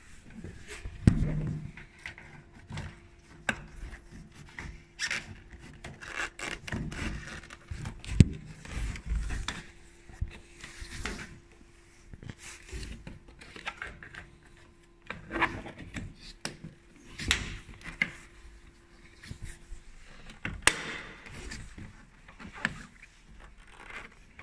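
Renault Megane 2's plastic wiper cowl panel and trim being worked by hand: irregular rubbing and scraping of plastic, with scattered sharp knocks and clicks as the panel and its clips are pushed and pulled.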